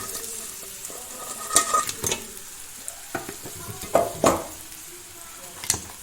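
Crab pieces going into hot sesame oil and spice paste in a pan: a steady sizzle, with about six sharp clatters against the pan as the crab is added and stirred.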